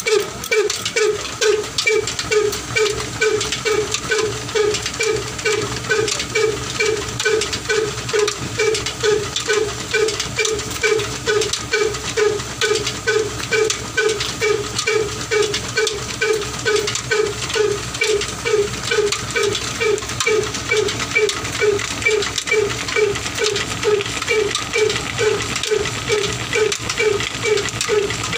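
Old Ruston-type 'black desi' diesel engine running steadily under load, driving a tubewell pump through flat belts and pulleys. It beats slowly and evenly, about two and a half beats a second.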